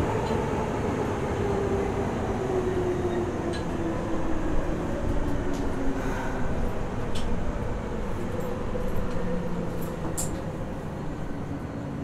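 Cab-interior running sound of a Nagoya Municipal Subway 3000 series chopper-controlled train braking. A motor whine slides steadily down in pitch as the train slows, over wheel and track rumble with a few light clicks and rattles.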